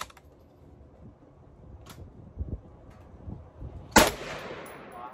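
A single gunshot about four seconds in, its echo dying away over about a second. Fainter sharp cracks come at the start and about two seconds in.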